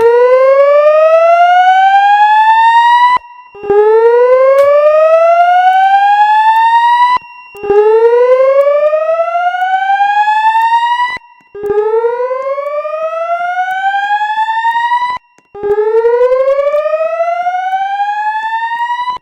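Notifier voice evacuation speakers sounding the slow whoop alert tone. Each rising sweep lasts about three and a half seconds and is followed by a short gap, and the tone repeats five times. It is the tone that comes before the recorded evacuation announcement.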